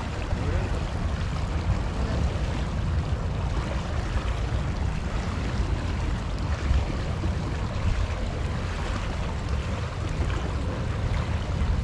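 Steady rush of water flowing fast out of a stone canal outlet, with wind buffeting the microphone in a low rumble.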